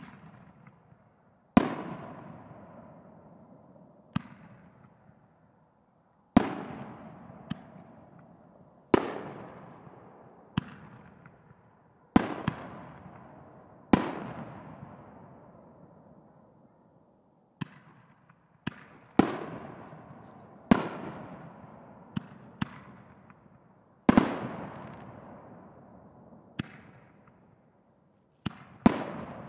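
Consumer firework canister shells (Excalibur J102) being fired and breaking one after another: sharp reports, some much louder than others, at irregular gaps of a second or two, each trailing off slowly.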